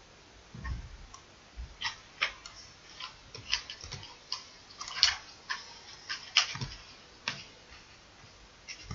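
Irregular clicking of a computer mouse and keyboard keys: about twenty short, sharp clicks at uneven intervals.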